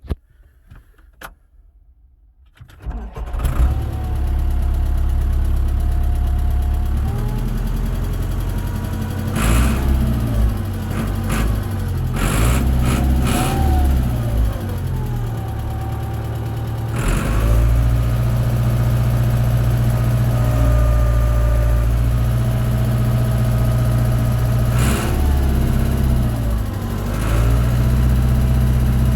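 Case 885 XL tractor's diesel engine starting about three seconds in, then running, heard from inside the cab, with the revs rising and falling several times.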